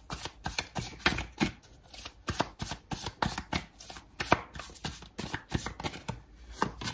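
A tarot deck being shuffled by hand: a quick, uneven run of soft card slaps and swishes, several a second.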